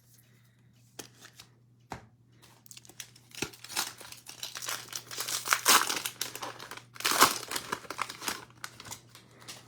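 Cellophane wrapper of a Prizm basketball card cello pack crinkling and tearing as it is opened by hand. A couple of faint clicks come first, then the crinkling builds from about three seconds in, with two loudest bursts in the second half.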